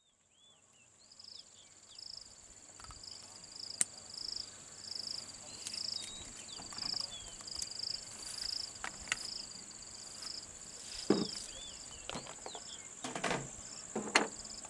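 Insects calling in scrub: a steady high-pitched drone with a rhythmic chirp repeating a little over once a second, and short bird whistles. A few sharp clicks and knocks come from medicine vials and syringes being handled.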